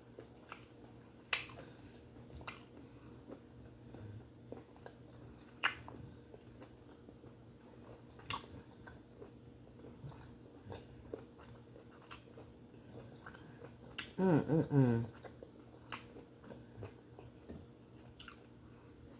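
Close-miked chewing of buttered steamed conch: soft wet mouth sounds with scattered sharp smacks and clicks. About fourteen seconds in comes a brief vocal sound, like a hum.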